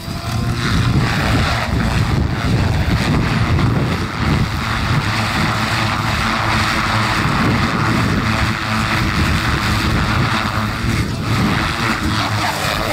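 Goblin radio-controlled helicopter in 3D aerobatic flight, its rotor blades giving a continuous rush over a low rumble, easing briefly about eleven seconds in.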